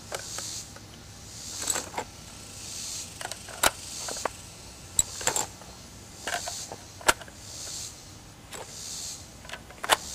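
Steel-cased .308 cartridges being loaded by hand into a PTR-91 rifle magazine: a string of sharp metallic clicks, one every second or two.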